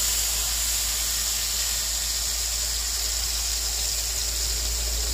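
Freshly added blended chili spice paste sizzling steadily in hot oil in a pan as it starts to sauté.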